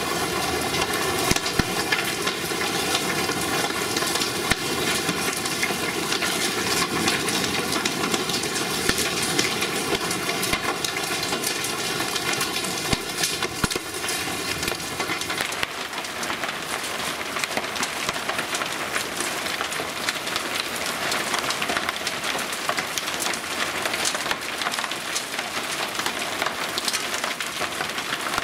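Steady heavy downpour of large-drop thunderstorm rain. Through the first half a steady pitched hum sits over the rain, and about halfway through the rain sound changes character.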